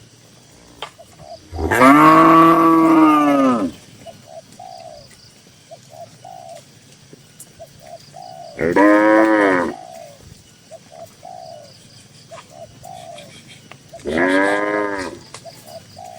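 Cattle mooing three times, the first moo about two seconds long and the next two shorter, each rising and then falling in pitch.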